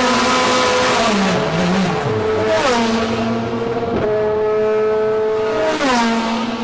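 A1GP single-seater race car engines running at a steady pitch through the pit lane, the note dropping sharply as a car passes by, about two and a half and six seconds in.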